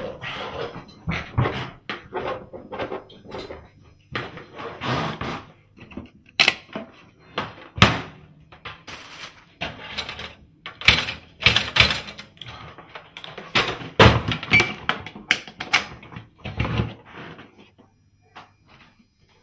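A run of irregular knocks, clatters and thuds, with a few sharper bangs, dying away near the end.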